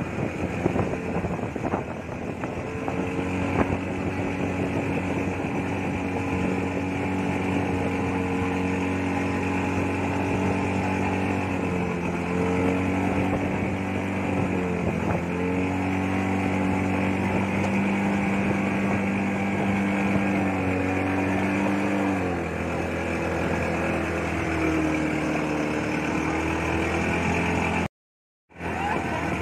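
Motorboat engine running steadily, its pitch wavering a few times and dropping about twenty-two seconds in, with a brief gap in the sound near the end.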